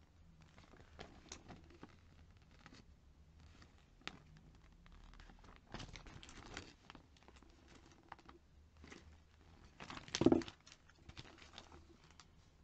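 Paper catalog pages rustling and crinkling as they are handled and turned, with a denser rustle about six seconds in as a page flips. A brief louder knock of handling about ten seconds in is the loudest moment.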